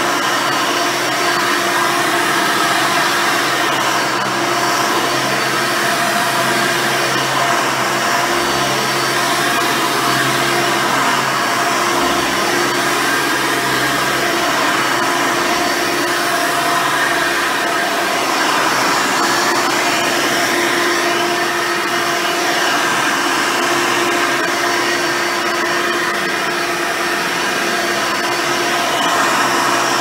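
Hoover Elite 350 upright vacuum cleaner, fitted with a higher-performance 7-amp motor, running steadily as its red-bristle brush roll is pushed back and forth over carpet.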